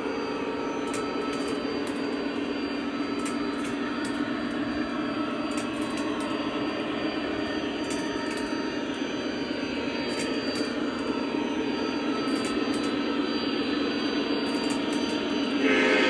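O gauge toy trains running on three-rail track: a steady whirr of motors and wheels with faint clicks of wheels over rail joints. The sound grows as the Lionel Legacy Conrail SD70MAC diesel locomotive approaches, and a loud pitched tone from the locomotive cuts in suddenly near the end.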